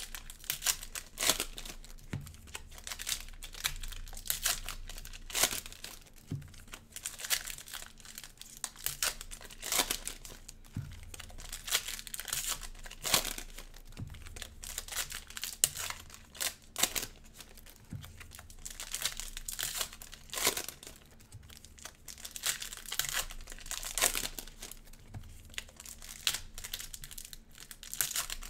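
Cellophane wrappers of Prizm Cello basketball card packs crinkling and tearing as they are torn open and handled, with dense, irregular sharp crackles.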